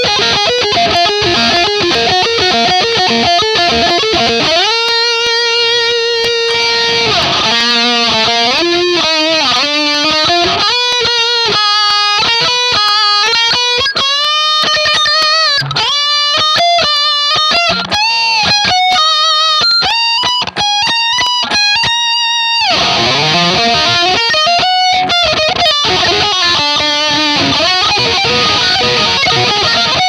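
Ibanez RGIT20FE electric guitar, distorted and played through its neck pickup: riffing, then a long held note about five seconds in, then a lead line with bends and vibrato that gives way to riffing again after about twenty seconds.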